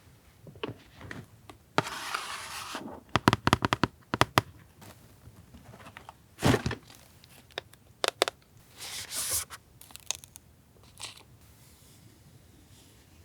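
Paper and packaging being handled: a tear, crinkling, and a run of quick sharp taps and clicks, with a single knock about six seconds in and a brief rustle near nine seconds.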